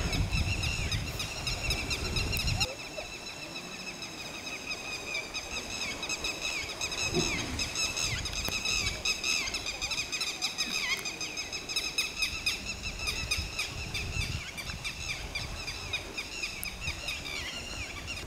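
A steady, high-pitched wavering chorus of wild animals throughout, over low rumbling noise that is strongest in the first few seconds and returns in patches later.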